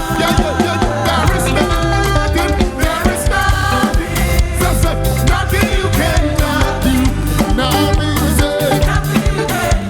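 Live gospel worship band playing upbeat music with a moving bass line and a steady drum beat, no lead vocal sung over it.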